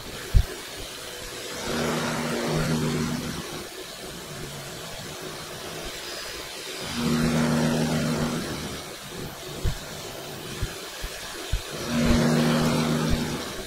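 PM-727M benchtop milling machine running while it mills a flat on a steel part. Three louder surges of motor and cutting noise, each about a second and a half, come about five seconds apart, with a few light knocks between them.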